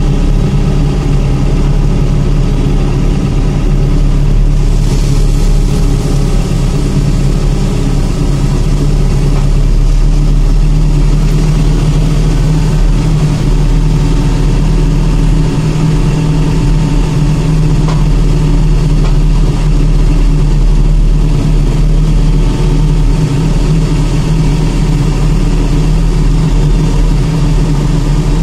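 Aircraft pushback tug's engine running steadily as it pushes an Airbus A321 back by a tow bar on the nose gear.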